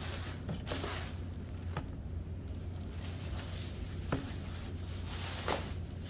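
Protective plastic film being peeled and crinkled off a mini fridge: rustling with a few sharp crackles, over a steady low hum.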